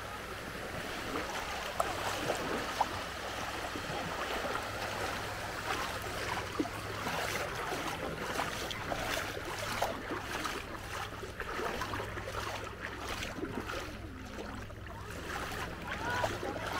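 Shallow, calm seawater sloshing and splashing in irregular short spurts as someone wades through it, over a low steady wind rumble.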